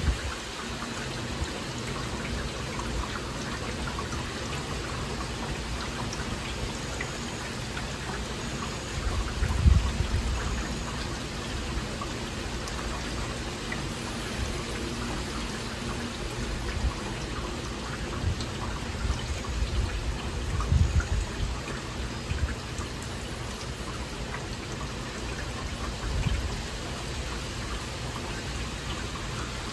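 Heavy rain falling steadily during a thunderstorm, with low rumbles of thunder about ten seconds in, again around twenty seconds, and briefly near the end.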